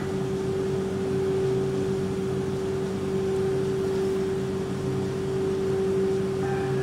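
BKN-S82 soft-serve ice cream machine running with a steady hum, one clear held tone over a lower drone, while it dispenses ice cream continuously. The machine has two compressors and two beater motors.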